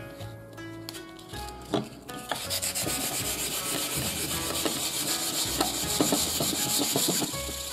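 Fine sandpaper scrubbed in rapid short strokes over the steel blade of a rusty deba knife to take off the rust, a scratchy rasping that sets in about two seconds in. Background music plays under it.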